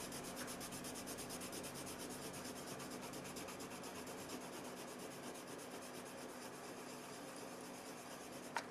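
Prismacolor colored pencil shading on Bristol paper: quick, even back-and-forth strokes make a faint, steady scratching.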